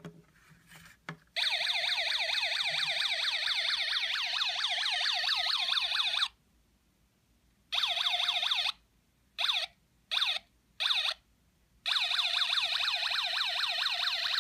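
Snap Circuits Junior light-controlled police siren, the alarm IC sounding through the kit's small speaker: a rapid electronic siren whose pitch sweeps up and drops back several times a second. It starts about a second and a half in, cuts out, comes back in a short stretch and three brief blips, then runs on steadily near the end, switched on and off by light reaching the kit's photoresistor.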